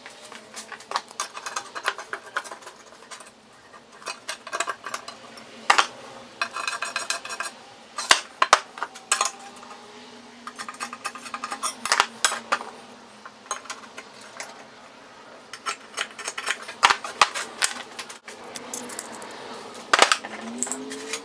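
Steel square tubing and metal measuring tools being handled on a wooden workbench: irregular sharp metallic clinks and knocks, some ringing briefly, with quieter scraping and rattling between them.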